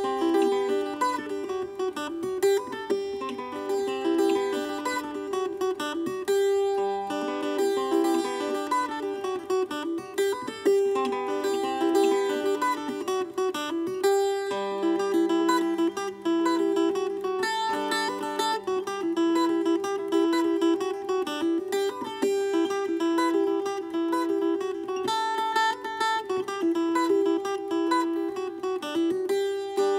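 Instrumental music with plucked acoustic guitar, steady held notes under a quick repeating melody.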